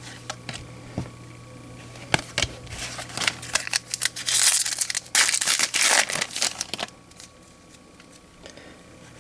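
Foil wrapper of a baseball card pack crinkling and rustling as it is handled, loudest from about four to seven seconds in, with scattered light taps and clicks of cards being flipped before and after.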